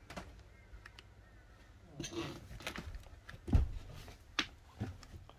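Footsteps going down the companionway steps into a motor cruiser's cabin: a handful of uneven thumps and knocks, the loudest about three and a half seconds in.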